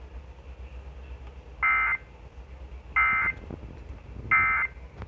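Three short bursts of NOAA Weather Radio SAME digital data tones, each about a third of a second long and about 1.3 s apart: the end-of-message code that closes the broadcast warning. A low hum runs underneath.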